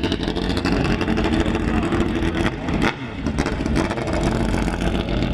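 Dirt drag motorcycle engine running hard and revving while the paddle-tyred rear wheel spins in a burnout, with a brief drop in sound about three seconds in.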